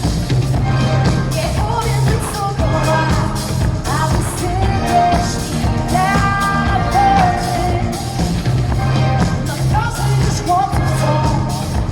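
Live rock-pop concert: a singer's voice over band and drums, loud in a large hall, as picked up by a smartphone's microphone.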